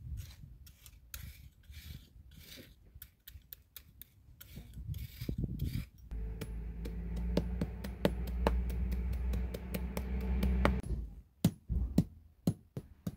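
A metal fork scrapes and pokes through loose cold-lay tarmac chippings in a pothole, giving gritty clicks and rasps. From about six seconds in, a steady low mechanical hum joins for several seconds. Near the end a claw hammer starts tapping the tarmac down in quick, sharp, evenly spaced strikes.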